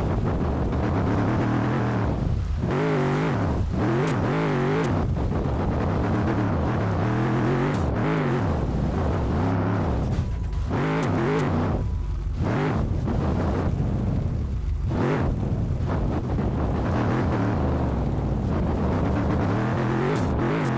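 Mercedes-AMG G63's V8 engine running under changing throttle while driving off-road, its pitch rising and falling again and again.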